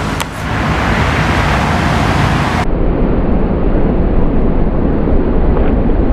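Loud, steady rushing noise, heaviest in the low end. The highest treble cuts out suddenly about two and a half seconds in.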